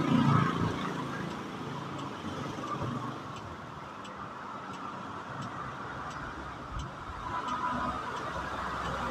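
SYM Tuscany 150 motorcycle engine running: a brief rise in revs right at the start, then idling steadily.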